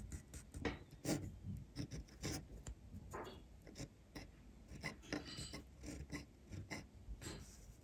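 The nib of a Graf von Faber-Castell Classic fountain pen scratching across paper in a run of short strokes, with small sharp clicks between them.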